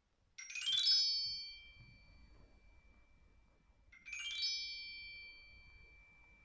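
A chime-like percussion instrument swept twice, about half a second in and again about four seconds in: each stroke is a quick rattling ripple of rising metallic tones, then one high ringing tone with overtones that fades slowly.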